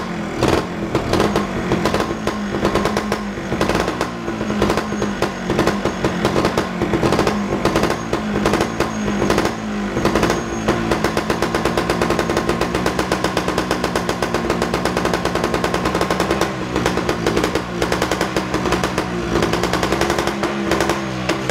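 Montesa 260 trials bike's two-stroke single-cylinder engine running just after a cold start, its rebuilt engine firing in rapid pulses. For the first ten seconds or so the revs rise and fall with the throttle, then it settles into a steadier fast idle, with a few blips of the throttle near the end.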